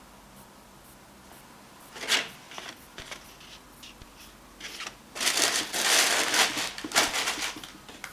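Rustling and scraping from something being handled, probably packaging or tissue paper: a short burst about two seconds in, then a longer, denser rustle from about five to seven and a half seconds.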